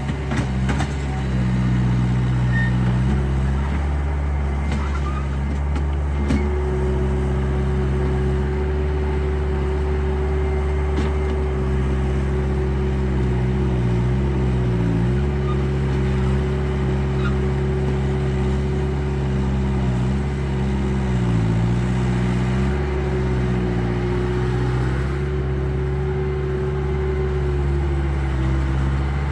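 RC hydraulic construction models working: a steady low engine-like drone, joined about six seconds in by a steady motor whine that dips in pitch a few times, as a hydraulic pump does when it takes load.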